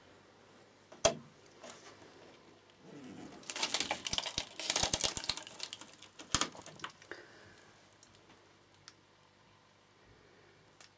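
A sharp click about a second in, then a few seconds of dense crackling and clicking, like thin plastic film crinkling, which fades out with a few last clicks.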